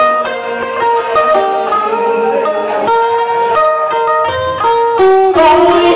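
Instrumental passage of Southern Vietnamese đờn ca tài tử music: a plucked-string instrument like a guitar plays a quick run of notes, some of them bending in pitch.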